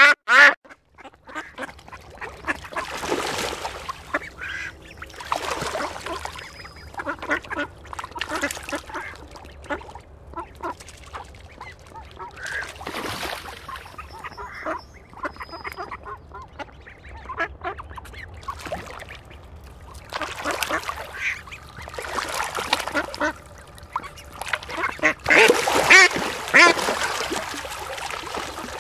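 Ducks quacking in repeated bouts, with a sharp call right at the start and the loudest, densest calling about 25 to 27 seconds in.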